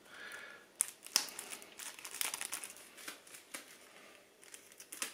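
Small white sachet being torn open and crinkled by hand, a run of sharp crackly rustles and snaps starting about a second in.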